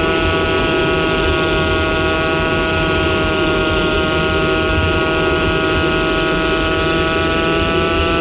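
Four-stroke pit bike engine running at a steady cruising speed, its pitch holding nearly constant.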